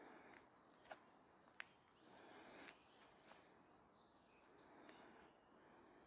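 Faint woodland ambience: small birds chirping in short high notes, with a few footsteps crunching on a gravel track in the first three seconds.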